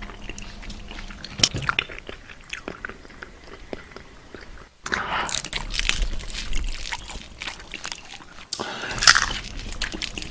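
Close-miked ASMR eating: a person biting and chewing crunchy food, with crisp crackling chews. There are louder bites about a second and a half in and again near the end.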